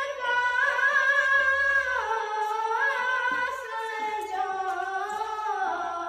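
A boy singing a naat unaccompanied into a handheld microphone: one long drawn-out phrase of held, wavering notes that steps down in pitch about two seconds in and again near the end.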